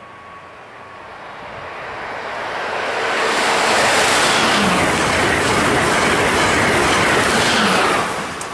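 Passenger train passing at speed on the track: the rumble and wheel noise build up, stay loud for several seconds, then drop away abruptly near the end.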